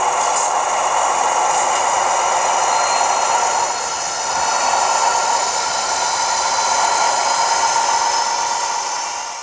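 Sound decoder of an H0 model BR 218 diesel locomotive playing a steady running diesel engine sound as the model drives off the traverse onto the track, fading out near the end.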